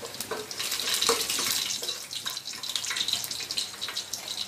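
Whole spices sizzling and crackling in hot oil and ghee in a steel pot, stirred with a steel spoon that knocks against the pot a couple of times about a second in.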